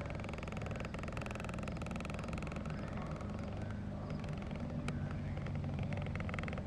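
An engine running steadily, a low even rumble with no change in speed.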